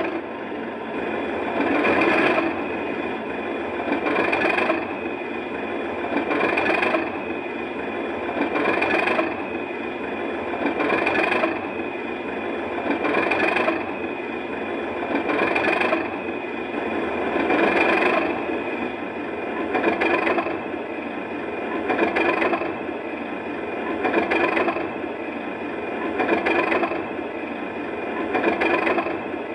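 Digitrains sound file for a Class 37's English Electric diesel engine, idling through its cold-start sequence, played through the model's large speaker. It runs with a regular surge about every two seconds and a steady high whine over it.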